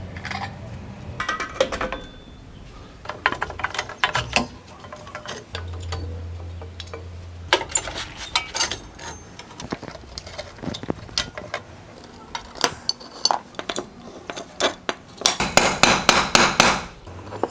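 Metal clinks, taps and knocks of hand tools and brake parts as the worn brake pads are taken out of the wheel brake, with a dense run of rapid rattling clicks near the end.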